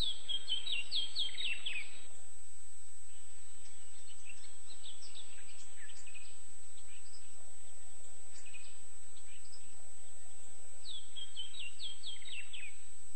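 Outdoor birdsong: a songbird gives a quick run of short, falling chirps at the start and again near the end, with scattered single chirps between, over steady background noise.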